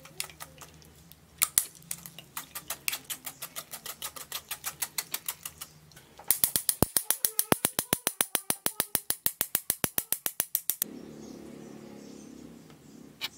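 Spoon scraping and pressing wet vegetable pulp through a fine-mesh metal strainer: a fast, even run of scraping clicks, about six a second, that turns louder and quicker, about nine a second, for a few seconds before stopping. A softer steady rustle follows.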